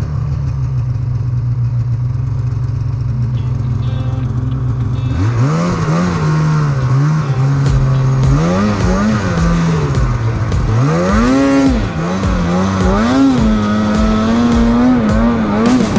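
Polaris snowmobile engine running at a steady low pitch, then revved up and down over and over as the throttle is worked in deep powder, the revs climbing higher near the end.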